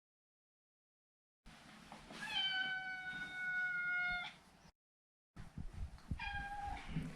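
Maine Coon cat meowing: a long, drawn-out meow of about two seconds that sinks slightly in pitch, then a shorter meow near the end, with dead silence between the separate recordings.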